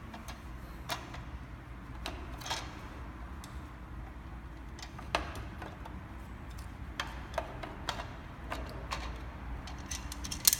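Scattered light clicks and taps of scooter parts being handled and fitted while the handlebar carry bar and its wiring are installed, over a low steady hum, with a sharper click near the end.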